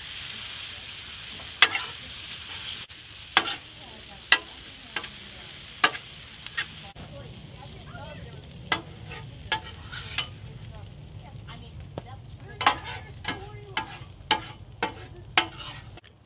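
Brussels sprouts frying on a flat-top griddle while a metal spatula scrapes and clacks against the griddle surface, about a dozen sharp strikes. The sizzle is strongest in the first few seconds.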